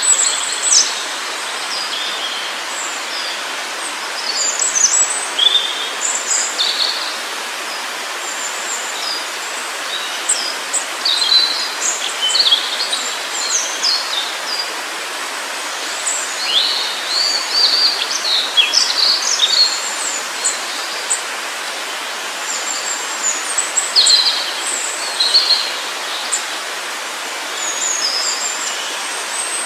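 Forest birds chirping and singing, many short calls and quick whistles overlapping, over a steady rush of flowing water.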